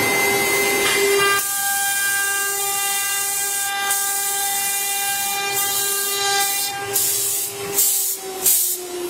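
CNC router spindle whining steadily at a high pitch while its bit cuts a curved groove into a wooden board, with a hiss of cutting over it. Near the end a few short, louder rasping bursts come, and the whine begins to drop in pitch.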